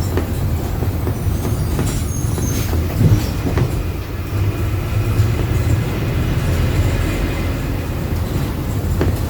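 Agrale MA 15.0 midibus heard from inside while driving: a steady low drivetrain rumble with the differential growl that is described as very loud. Body rattles and knocks come through, with a sharper jolt about three seconds in.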